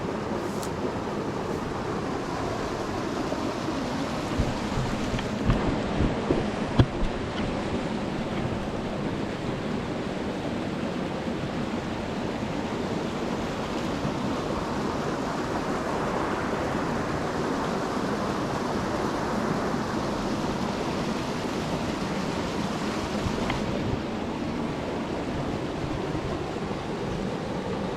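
Steady rush of water from a desert creek and waterfall. A few low thumps, the loudest about seven seconds in, stand out over it.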